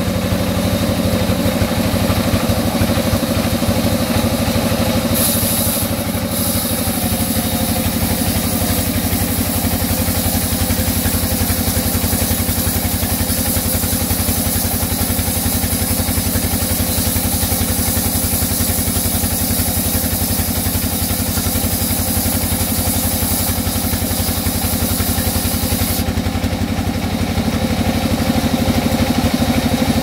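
Sawmill band saw running steadily, its blade cutting lengthwise through a mango-wood plank. A high hiss joins the steady low hum about five seconds in and drops away near the end.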